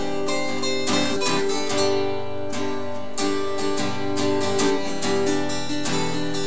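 Acoustic guitar strumming chords, the instrumental opening of a song.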